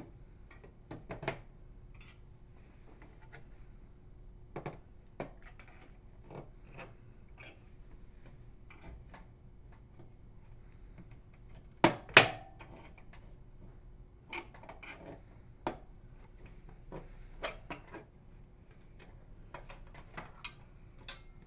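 Plastic retaining tabs on a microwave oven door being pried loose with a putty knife and small flathead screwdriver: scattered light clicks and scrapes, with two louder snaps about twelve seconds in.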